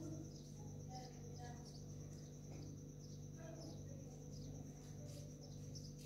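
Faint background sound: a steady, high-pitched cricket chirring over a low electrical hum, with a few soft short chirps scattered through it.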